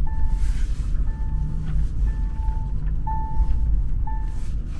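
Low, steady rumble of an SUV's engine and tyres on a snowy track, heard inside the cabin. Over it an electronic warning chime beeps about once a second, each beep a short single tone.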